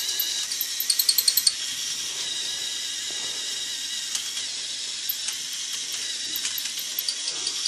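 Lego Power Functions electric motor running with a steady high whine, turning the plastic gears that move the Lego excavator's arm and bucket, with a quick run of clicks about a second in.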